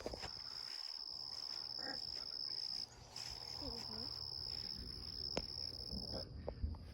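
Insects trilling in a steady, high-pitched outdoor chorus that breaks off briefly about three seconds in, with one sharp click a little past five seconds.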